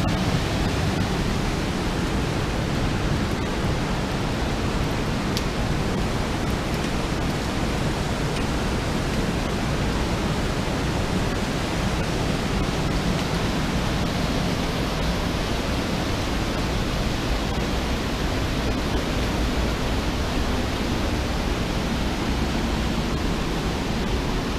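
Steady rush of a gorge stream pouring over small waterfalls and cascades.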